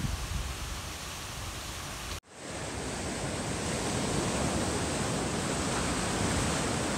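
Ocean surf breaking on a sandy beach, a steady rushing noise. It drops out for an instant about two seconds in, then returns and grows a little louder.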